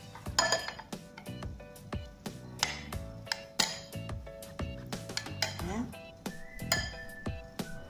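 Metal kitchen tongs clinking and knocking against a glass bowl as potato strips are turned in wet batter, a string of irregular clinks. Background music plays underneath.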